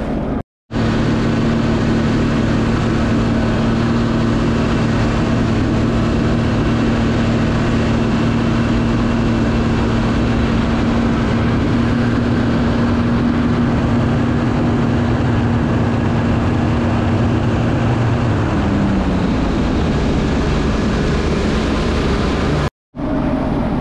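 Jet ski engine running at steady high revs under way, over a constant rush of water and wind noise; about three-quarters of the way through the engine note drops as the throttle eases off. The sound cuts out to silence for a moment twice, about half a second in and near the end.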